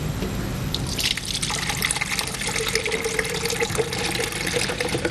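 Water being poured into a plastic blender jar, running steadily as the jar fills; the pour picks up about a second in.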